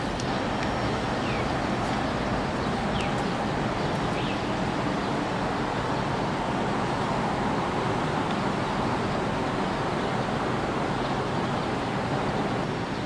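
Steady outdoor background noise with a few short, high chirps in the first four seconds.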